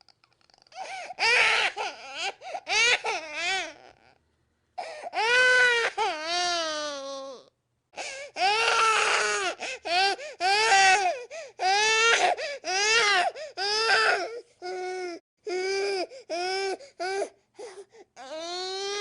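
Infant crying: a run of pitched wails and sobbing cries rising and falling in pitch, broken by short gasping pauses for breath.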